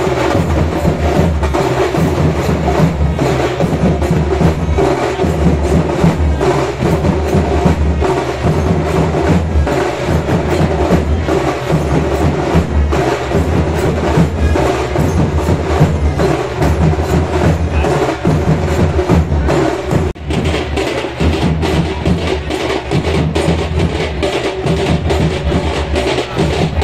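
Loud drum-driven procession music with a fast, dense beat and a strong bass, dipping briefly about twenty seconds in.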